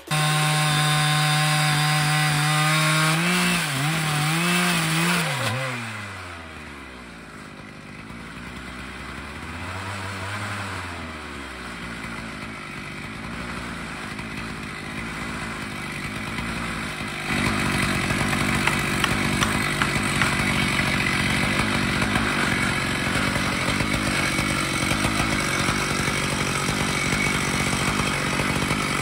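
Stihl MS 881 two-stroke chainsaw on an Alaskan-style chainsaw mill: it runs steadily under load for the first few seconds, then drops off and wavers, its revs falling and rising at a lower level. About seventeen seconds in it opens up to full throttle and stays loud and steady as a new cut through the oak log starts.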